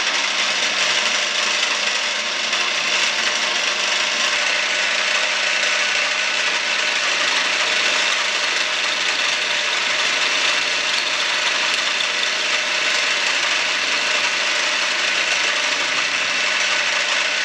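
Milling machine running steadily as its cutter mills a tooth into a soft, not yet hardened ShKh15 bearing-steel pawl blank; an even, unbroken cutting noise.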